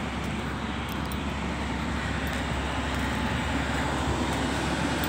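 A vehicle's engine running steadily, with a low, even rumble.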